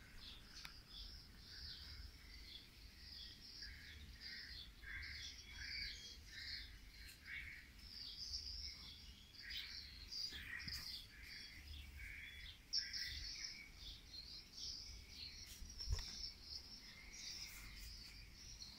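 Faint chirping of small birds: many short, high calls repeated throughout.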